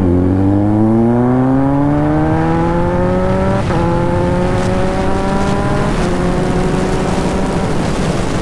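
Kawasaki Z900's inline-four with an SC-Project aftermarket exhaust accelerating hard through the gears, its pitch climbing steadily. Two quickshifter upshifts come about three and a half and six seconds in, each a short crack and a quick drop in pitch before the climb resumes.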